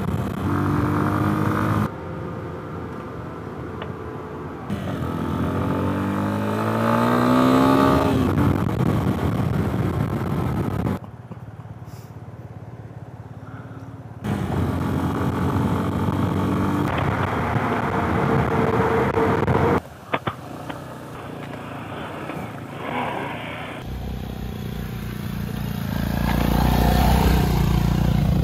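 Motorcycle engine heard from the rider's helmet camera, with wind rush. It pulls away and rises in pitch as it accelerates about six seconds in, across several short clips cut one after another.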